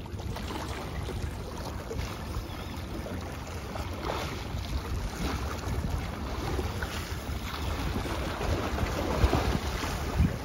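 Wind buffeting the microphone over small sea waves washing and splashing against breakwater rocks.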